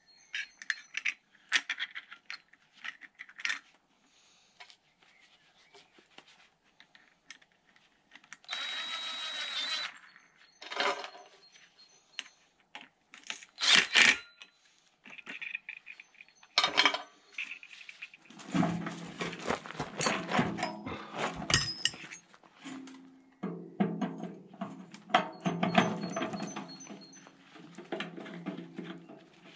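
Scattered sharp clicks and knocks of hand work on metal parts, with one louder knock about 14 seconds in. From a little past halfway, music with held chords plays over them.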